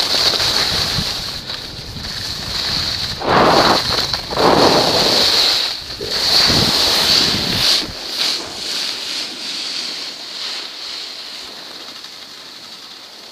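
Wind rushing over the microphone of a skier's goggle camera, together with the scrape of skis on packed snow. The noise swells in surges about three, four and six seconds in, then eases off and thins out after about eight seconds as the pace slows.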